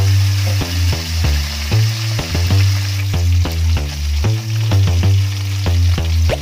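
Fish, fried tilapia, sizzling in hot oil in a wok, under background music with a heavy bass line and a steady beat. The music is the loudest thing heard.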